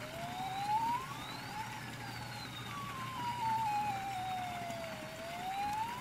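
The built-in electronic siren sound effect of a toy marine rescue fire RC boat, wailing: its pitch rises quickly and falls slowly, one cycle about every five seconds, and starts climbing again near the end.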